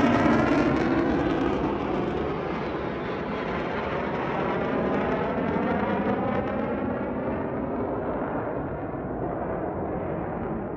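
Low-flying jet aircraft screaming past overhead, loudest at the start and then fading and growing duller as it moves away. Its roar has a sweeping, phasing quality.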